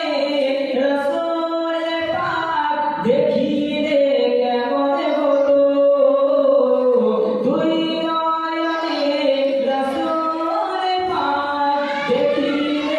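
A man singing a Bengali Islamic devotional song (gojol) into a microphone, unaccompanied, in long held and ornamented melodic phrases with short breaths between them.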